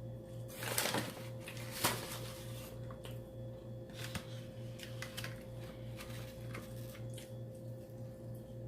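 Close-miked mukbang eating sounds: chewing and handling of fried takeout food, a string of short crackles and clicks with the two loudest about one and two seconds in. Under it runs a steady electrical hum with a low drone that pulses a little over twice a second.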